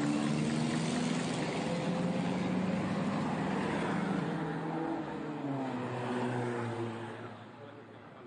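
Pre-war racing car's engine running hard as the car drives past, its pitch rising and falling with the throttle, then fading away near the end.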